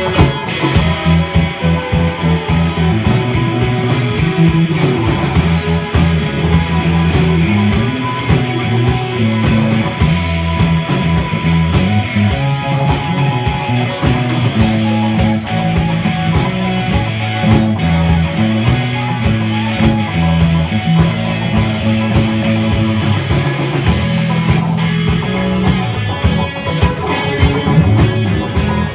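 A live rock band playing loudly: guitar riffing over a repeating bass line and a steady drum beat, recorded on a phone.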